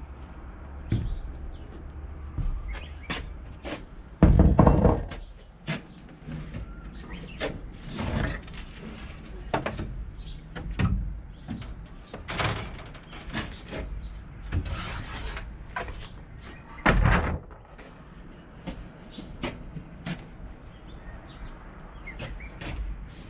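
Hand demolition of wooden boards with a pry bar: scattered knocks and scrapes of metal on wood, with two heavy thumps, one about four seconds in and one about seventeen seconds in.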